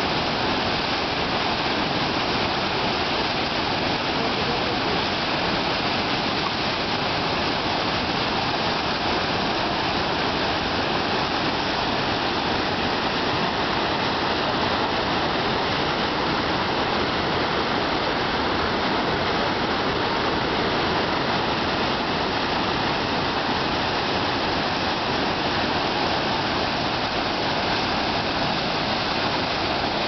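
Waterfall running at high water: a steady, loud rush of whitewater pouring over the rocks into the pool below.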